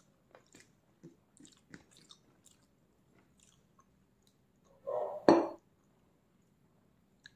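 Close-miked eating sounds: soft chewing and small wet mouth clicks, then a short, louder crunchy bite about five seconds in.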